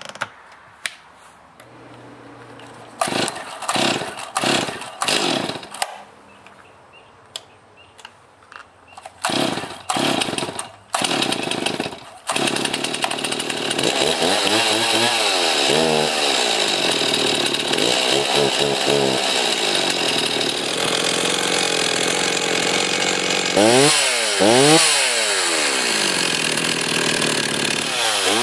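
Stihl MS260 two-stroke chainsaw, just fitted with a new cylinder and piston, being started for the first time after the rebuild: a few short bursts as it is tried, then it catches about twelve seconds in and keeps running, its throttle revved up and down several times.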